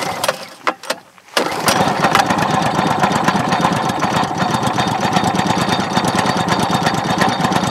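Champion 196cc single-cylinder four-stroke engine on an SPS longtail mud motor, cold-started with the pull cord in snow. After a few short pulls it catches about a second and a half in and runs steadily with a fast, even beat.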